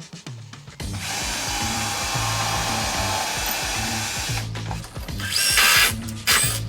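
Power drill running steadily for about three and a half seconds, then a few short, louder bursts near the end, over background music.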